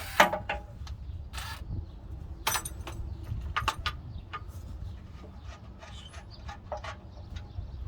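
Irregular clicks and knocks of tools and metal parts being handled during transmission mount work, over a steady low hum.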